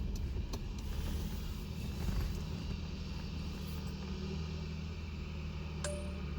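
A car engine idling with a steady low hum, with a few light clicks near the start and one near the end.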